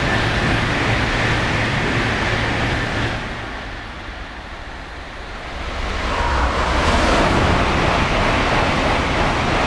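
Tokaido Shinkansen trains passing through the station at speed. The rushing noise of one train fades out about three seconds in. A second train then sweeps through from about six seconds, building to a steady loud rush of air and wheels.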